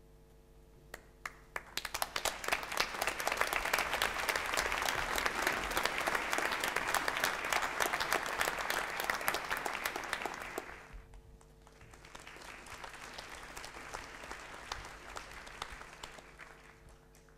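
A large audience applauding in a theatre hall. A few scattered claps come about a second in, then the clapping swells and stays loud until it dies away around the middle. A second, softer round of applause follows and fades near the end.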